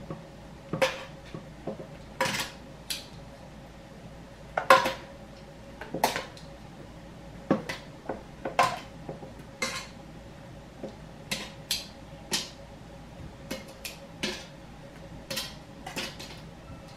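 Metal kitchen tongs clinking against a pot and tomatillos dropping into a plastic blender jar: an irregular string of sharp clicks and knocks, about one a second, over a faint steady hum.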